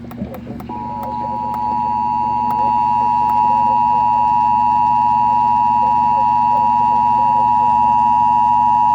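Emergency Alert System attention signal: the two-tone alarm of 853 Hz and 960 Hz sine waves played together, starting about a second in and holding steady and loud. It heralds a National Weather Service severe thunderstorm warning.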